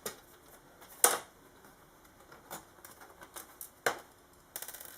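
Sharp clicks and taps of a small screwdriver and screws against a laptop's plastic case as two screws are taken out: one loud click about a second in, another near four seconds, then a quick rattle of small clicks near the end.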